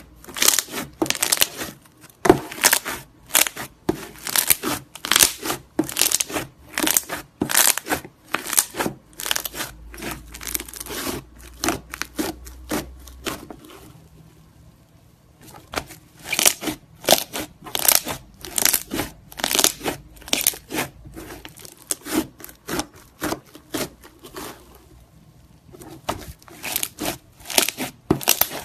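White slime mixed with small coloured beads, squeezed, kneaded and poked by hand, giving a rapid, irregular string of sharp crackles and pops. It goes quieter for a moment about halfway through, and again a little before the end.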